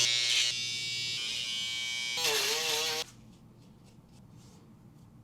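Small handheld electric motor, like a shaver or electric toothbrush, buzzing, its pitch shifting and wobbling, then cutting off suddenly about three seconds in.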